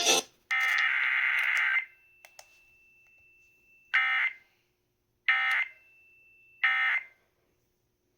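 Emergency Alert System SAME digital data bursts from a NOAA Weather Radio Required Weekly Test. First comes the last burst of the header, about a second long. After a pause come three short end-of-message bursts, about a second and a half apart, which mark the end of the test.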